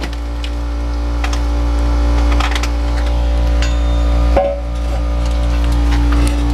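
A steady low mechanical hum with a fast regular pulse, growing louder, with scattered light metal clanks and knocks as the steel receiver hitch is handled under the vehicle.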